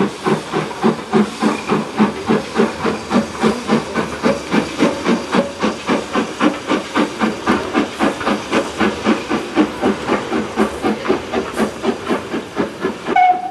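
Steam tank locomotive hauling a train away under power, its exhaust chuffing in an even beat of about four a second with a hiss of steam.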